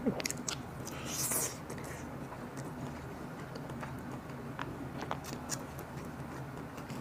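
Biting into and chewing a braised chicken drumstick held by hand: soft, scattered mouth clicks, with a brief, louder rustle about a second in.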